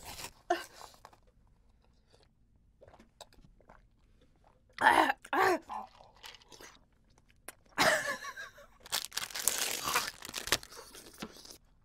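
Two loud gulps of drink from a glass about five seconds in. Near the end, the plastic wrapper of an ice pop crinkles and tears as it is pulled open.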